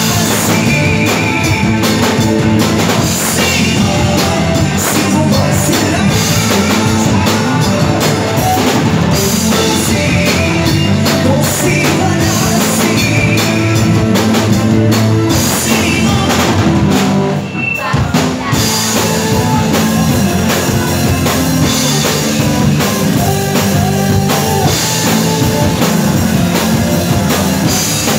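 Live rock band playing loudly: electric guitars, drum kit and a lead singer. The music drops out briefly a little past the middle, then comes back in.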